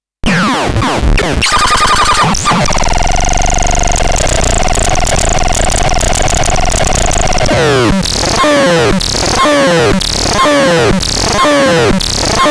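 Electronic synthesizer playing dense, noisy tones with gliding pitches. From about eight seconds in it settles into a repeating pattern of falling sweeps, about one a second.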